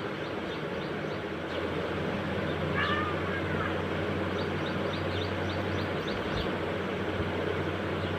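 A short animal call that rises and falls, about three seconds in, over a steady low hum, with runs of quick, faint, high chirps.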